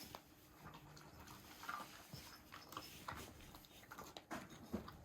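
Faint, scattered clicks and small knocks from a pet dog moving or chewing, in a small room.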